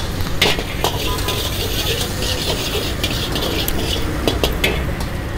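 Chopped garlic frying in hot oil in a large wok, sizzling steadily as a steel ladle stirs it, with a few sharp clicks and scrapes of the ladle against the wok.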